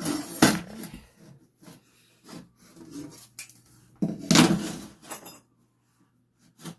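Tools scraping and knocking on a wooden subfloor while a cut line is marked out. There are two loud scrapes about a second long, one at the start and one about four seconds in, with light knocks between them.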